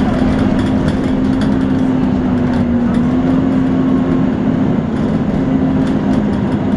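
Volvo B9TL double-decker bus running with its 'hoover' whine, a steady vacuum-cleaner-like drone that wavers slightly in pitch over the engine rumble, typical of the bus's engine cooling fan. Small rattles click throughout.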